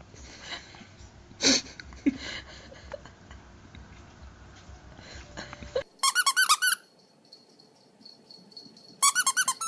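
A dog's squeaky toy squeaking in two quick runs of about eight squeaks each, a few seconds apart. Earlier there is a short, sharp noise about one and a half seconds in.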